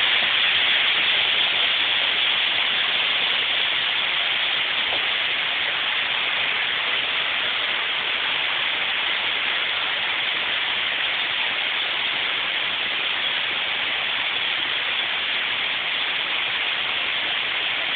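Steady rush of water tumbling down a rocky cascade, an even hiss with no breaks, easing a little in loudness as it goes on.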